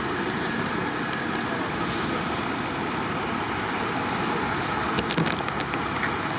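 Fire trucks' diesel engines running, a steady even noise.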